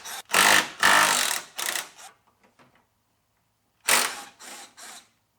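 Ratchet wrench clicking in short strokes while loosening the bolts holding a car's oil cooler: three strokes, a pause of about two seconds, then three more.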